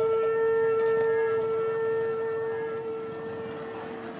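Background music: a single long held wind-instrument note that slowly fades away near the end.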